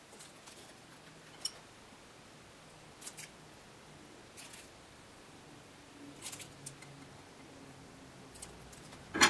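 Scissors snipping thin business-card strips, a few short, faint snips spread out, with a louder knock just before the end.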